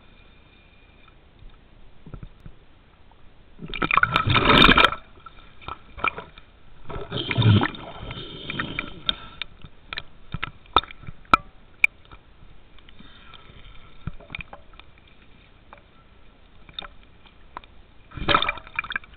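Muffled underwater sound picked up by a submerged camera: loud rushing surges of water about four and seven seconds in and again near the end, with scattered sharp clicks and crackles between them.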